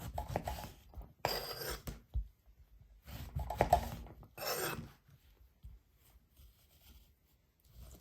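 Food being cut or scraped by hand in a kitchen: four short rasping strokes in the first five seconds, then quiet.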